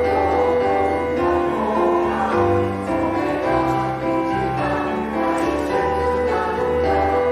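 Choir singing with piano accompaniment, moving through a sequence of held notes.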